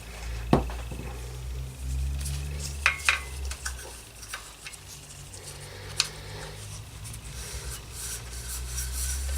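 Hands working inside an opened airbrush compressor: rubbing and scraping handling noise with a few sharp clicks, over a low steady hum.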